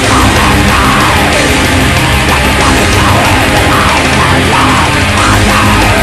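Heavy metal music from a demo recording, loud and dense, with a line sliding up and down above the band.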